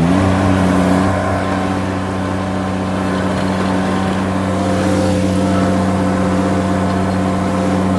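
Derette V1000 mini skid steer's engine, just started, coming up to speed at the very start and then running steadily at a fixed speed.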